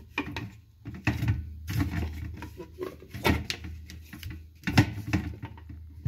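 Hard plastic knocks and clicks from a top-loading washing machine's agitator as its parts are handled and fitted back together, with the loudest knock nearly five seconds in. A steady low hum runs underneath.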